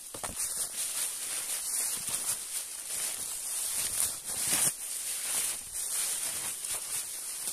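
Footsteps scuffing and sliding on loose rock and dry leaves, with brush rustling: irregular crunches throughout, over a steady high-pitched hiss.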